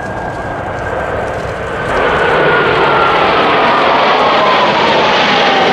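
Formation of six Blue Angels F/A-18 Hornet jets flying past: a loud jet roar that swells sharply about two seconds in, with a whine that falls steadily in pitch as they go by.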